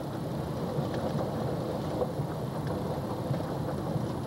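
Steady engine and tyre rumble heard from inside the cab of a truck driving on a gravel road.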